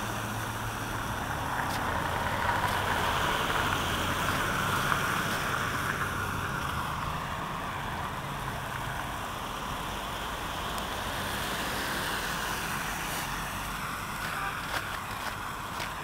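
A vehicle engine running with a steady low hum that fades out about six seconds in, over a steady hiss.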